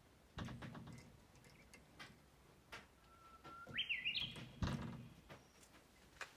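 Cat clawing and climbing a sheer curtain: the fabric rustling and clicking, with a few dull thumps as it pulls and shifts its weight, the heaviest a little after the middle. Partway through, a short high chirp rises in steps.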